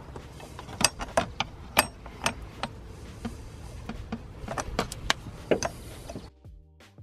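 Light clicks and knocks of a foam cone air filter, its plastic adapter and a metal mounting bracket being handled and tried against an engine's intake pipe, irregular and a few at a time. A little after six seconds it cuts off abruptly, leaving a faint steady hum with a few held tones.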